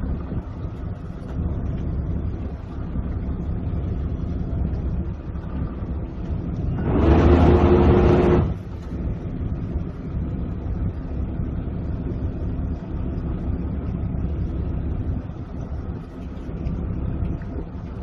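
Steady low rumble of a fishing boat's engine running, with wind on the microphone. About seven seconds in, a louder burst lasting a second and a half rises over it and then drops back.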